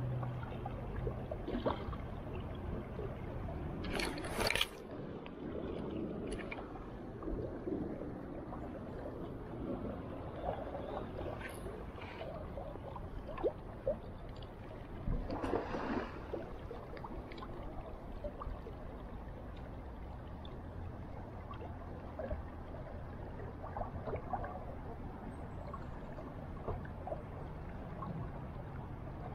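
River current trickling and rippling steadily, with two brief louder noises, one about four seconds in and one about sixteen seconds in.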